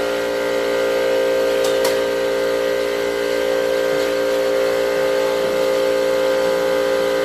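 Steady machine hum at one unchanging pitch, with many overtones and no change in level; two faint clicks a little under two seconds in.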